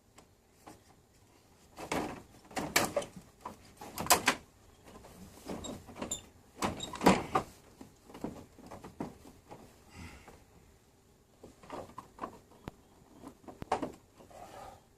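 Irregular knocks and clicks of handling, the loudest coming in a run from about two to seven seconds in and a few more near the end.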